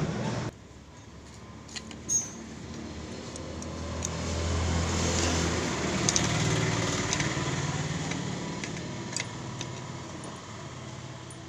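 A motor vehicle's engine hum in the background, swelling over a few seconds and slowly fading, with a few light metallic clicks.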